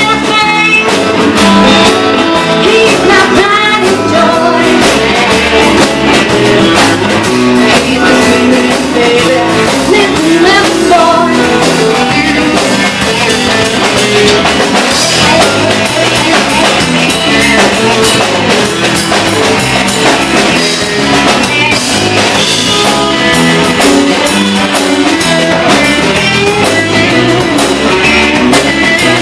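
Rock music with drum kit and guitar playing steadily and loud.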